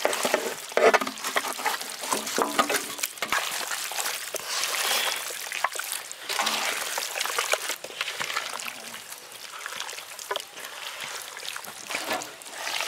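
Egg-and-flour batter being mixed, with wet, irregular sloshing and trickling.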